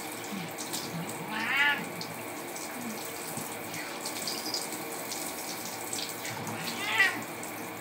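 Handheld shower spray running steadily onto a wet cat in a bathtub. The cat meows twice, short high meows about a second and a half in and again near the end.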